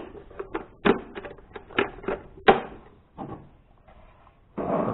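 Several sharp clicks and knocks of hard plastic as the lid and locking clip of a Braun 4235 juicer are fitted and snapped into place.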